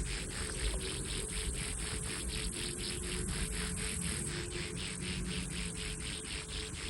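Insects chirping in an even rhythm, about five pulses a second, over a continuous high-pitched buzz.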